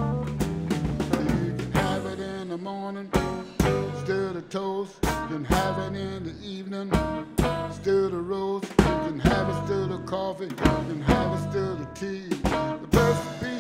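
Live blues band playing an instrumental passage with no vocals: a guitar lead with bending notes over electric bass and a drum kit keeping a steady beat.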